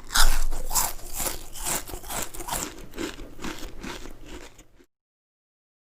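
Crunching sound effect, rhythmic crunches about two to three a second, like something crisp being chewed, growing fainter and cutting off near the end.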